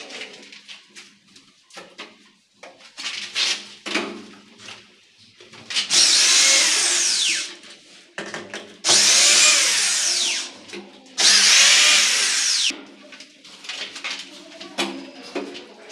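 Corded electric hand drill working on a uPVC window frame, run in three bursts of about a second and a half each, its pitch dropping as it winds down after each. Short knocks and clatter of handling come before and after the drilling.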